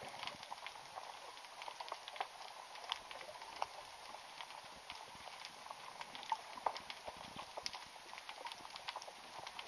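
Underwater ambience: a faint, irregular crackle of sharp clicks.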